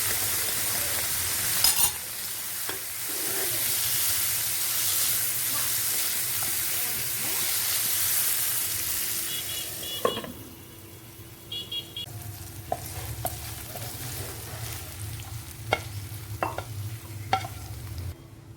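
Chicken pieces with onion, ginger-garlic paste and ground spices sizzling in oil in a pan while being stirred. About ten seconds in the sizzle drops away abruptly, leaving quieter frying with scattered knocks and scrapes of the spoon against the pan.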